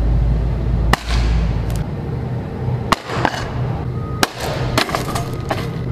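Objects dropped from a rooftop hitting the concrete pavement below: about four sharp impacts, one to two seconds apart, over steady background music. A low wind rumble on the microphone runs through the first two seconds.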